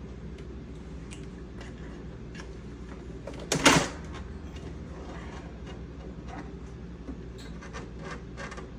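Handling the plastic trays and covers of a new Brother DCP-L2640DW laser printer while unpacking it: scattered light clicks and taps, and one brief loud rasp or clunk about three and a half seconds in, over a steady low hum.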